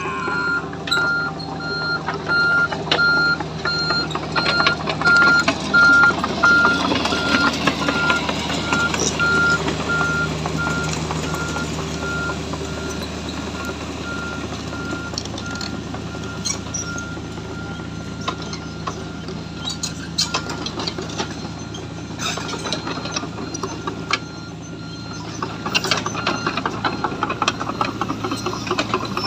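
Excavator's diesel engine running steadily while its warning alarm beeps at one pitch for the first dozen seconds or so. After the alarm stops, scattered clanks and knocks come from the working machine.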